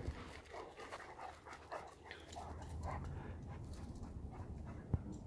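Dog panting, a run of short quick breaths, with one sharp click near the end.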